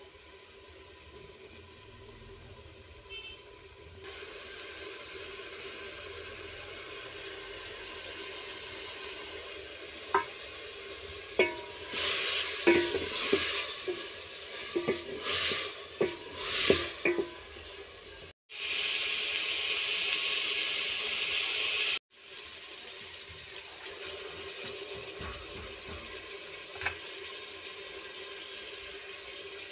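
Cauliflower frying in a metal pot, a steady sizzle, with a wooden spoon scraping and knocking against the pot in a burst of stirring from about 10 to 17 seconds in. The sound cuts out briefly twice, near 18 and 22 seconds in.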